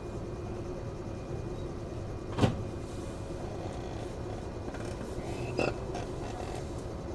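Interior of a JR 113 series electric train car: a steady mechanical hum, broken by one sharp knock about two and a half seconds in and a smaller clatter a few seconds later.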